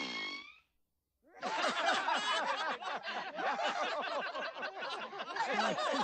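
A group of cartoon characters laughing together, many voices overlapping, starting about a second and a half in after a short silence. Before that, the tail of a falling sound fades out.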